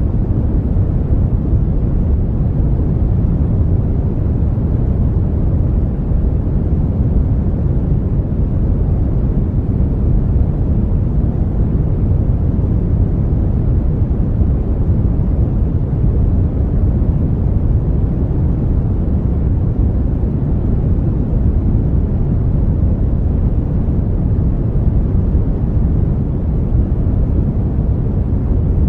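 Brown noise: a steady, deep rushing hiss with most of its weight in the low end, unchanging throughout.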